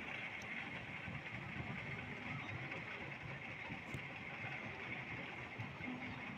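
Steady outdoor background noise: an even hiss with a low, uneven rumble underneath.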